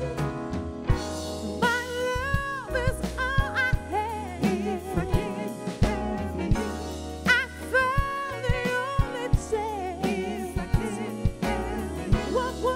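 Live soul band: a woman sings the lead with wide vibrato over electric guitar, keyboard, bass and a drum kit keeping a steady beat.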